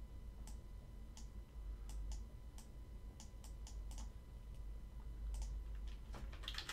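Irregular clicking of a computer mouse and keyboard: about a dozen sharp clicks, some in quick runs, over a low steady hum.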